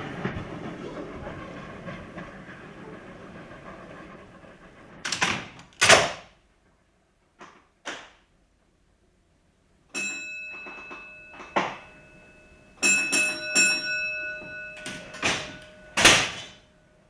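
The rumble of a departing train fades away over the first few seconds. It is followed by a series of sharp metallic bangs and clanks, several of which ring on for a second or two.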